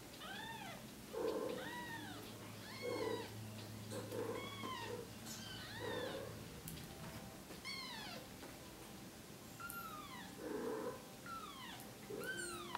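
Newborn Bengal kitten mewing over and over, about a dozen thin, high cries roughly one a second, each rising then falling in pitch, with a louder, lower sound alongside several of them.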